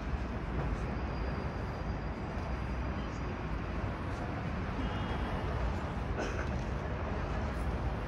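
Steady outdoor city ambience: a low, even rumble of distant traffic.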